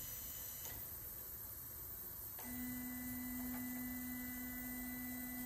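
Roland MDX-40 CNC router's Z-axis drive jogging the spindle slowly down toward the workpiece: a steady, even-pitched motor whine that starts about two and a half seconds in, over a faint background hum.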